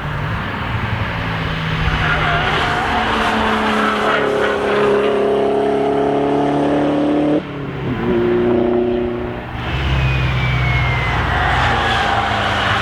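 Track-day cars passing at speed one after another. One engine's pitch climbs for several seconds and breaks off abruptly about seven seconds in, then more cars follow, one with a falling whine near the end.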